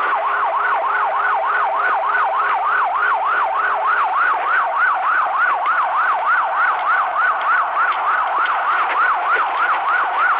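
Police car siren on a fast yelp, its pitch sweeping up and down about three times a second without a break.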